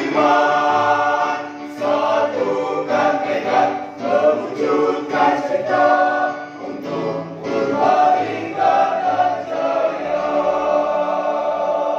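Mixed choir of women's and men's voices singing a march in phrases, then holding one long note near the end.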